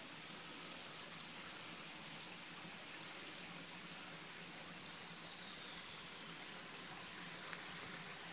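Faint, steady trickle of spring water running over rocks in a desert canyon. A faint falling whistle sounds about five seconds in.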